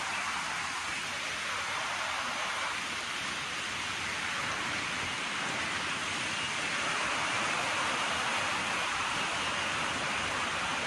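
A steady, even hiss, growing a little louder about seven seconds in.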